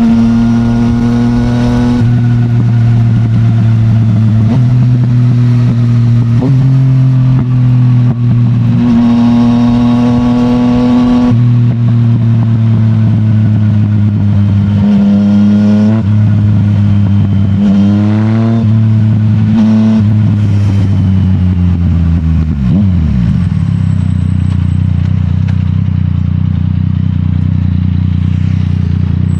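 Yamaha MT-09's CP3 inline three-cylinder engine through an Akrapovic full titanium exhaust, riding: it pulls through the revs, blips up and down in the middle, then the pitch falls as the bike slows and the engine settles to a steady idle for the last few seconds.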